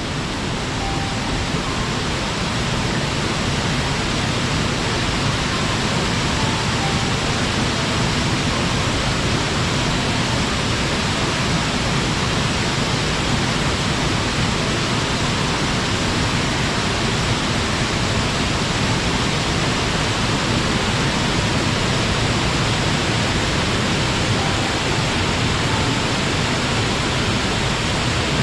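A mountain-stream waterfall pouring with a steady, dense rush of falling water, which swells slightly over the first couple of seconds.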